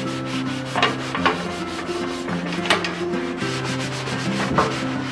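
Sponge scrubbing a soapy metal stove door, heard as a series of rough swishing rubs. The strokes come about a second in, again near three seconds, and once more past four and a half seconds.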